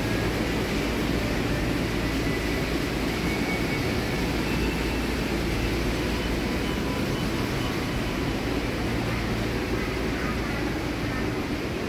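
Steady rushing noise with a constant low hum underneath, unchanging in level.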